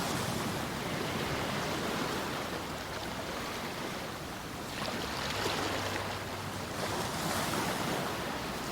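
Ocean waves washing onto a shore: a steady rush of surf that rises and falls, with a fresh wave surging in about halfway through and another near the end.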